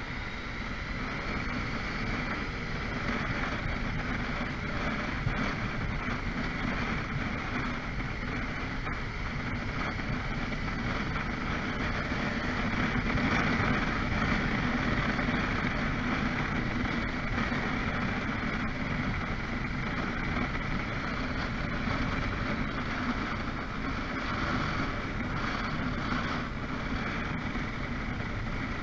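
Motorcycle riding at about 40 km/h in city traffic: steady engine and road noise mixed with wind rush over the bike-mounted microphone, which swells for a few seconds about halfway through.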